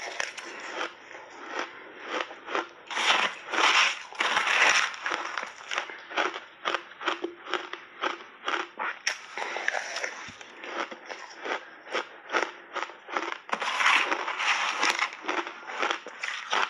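Close-up crunching of shaved ice being bitten and chewed in big mouthfuls: a dense run of crisp crunches, loudest about three seconds in and again near the end.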